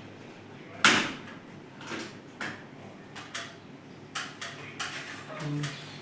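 Scattered clicks and knocks of hands handling an air conditioner's plastic casing and grille, about eight of them, the loudest about a second in.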